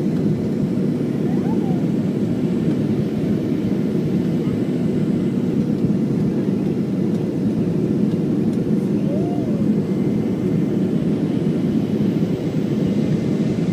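Steady cabin noise inside a Boeing 737-500 in descent: the hum of its CFM56-3 turbofan engines and the rush of air past the fuselage, heard by a window beside the engine.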